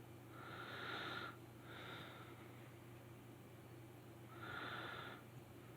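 A person breathing through the nose close to the microphone: three soft breaths, about a second each, over a faint steady hum.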